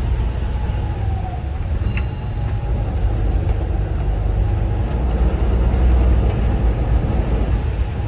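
Inside a Volvo B7RLE single-decker bus under way: the steady low drone of its diesel engine and road rumble, with a faint whine that wanders slowly in pitch. A single short click sounds about two seconds in.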